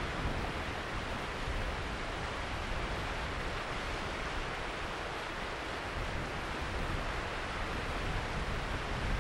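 Steady rushing wind noise with an uneven low rumble.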